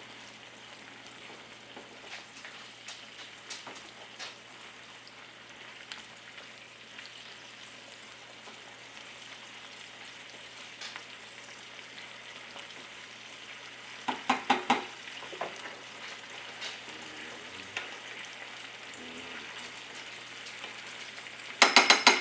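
Venison strips frying in hot oil in a pan: a steady sizzle with scattered crackles. About fourteen seconds in, and again near the end, a quick run of loud, sharp knocks.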